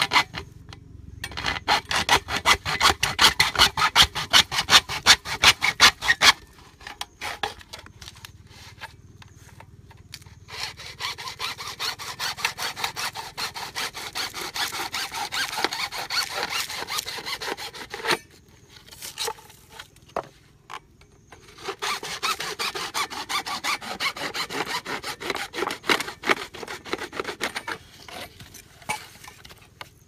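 A hacksaw cutting through PVC plastic pipe in quick back-and-forth strokes, in three bouts: one at the start, one from about ten seconds in, and one from about twenty-one seconds in, with short pauses and a few knocks between them.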